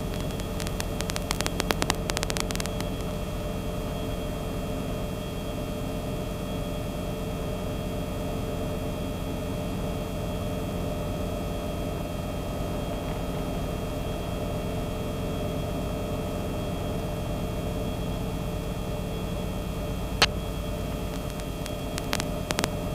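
Steady drone of a Cabri G2 helicopter's piston engine and rotors, heard inside the cockpit as a constant hum with several steady tones. There are a few faint clicks in the first couple of seconds, a sharp click about twenty seconds in, and a few more near the end.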